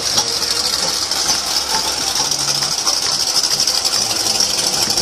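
A steady high hiss over the low running of a vintage truck's engine as it drives slowly past.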